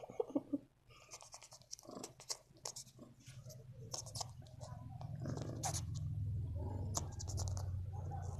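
Scratching and rustling of fur and bedding as hands play roughly with a tabby kitten, with scattered small clicks. From about three seconds in, a steady low rumble builds up and holds.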